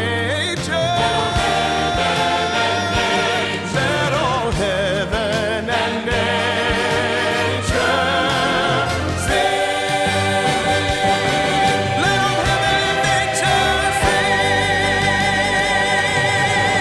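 Choir singing with orchestral accompaniment, with drum strikes in the first half. About halfway through it settles onto one long held chord with vibrato: the closing chord of the piece.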